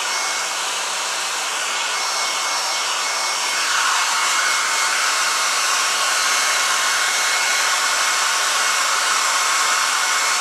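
Hand-held hair dryer running steadily, blowing hot air to dry the fur of a freshly mounted squirrel, with a faint thin whine over the rush of air. It gets louder about four seconds in and holds there.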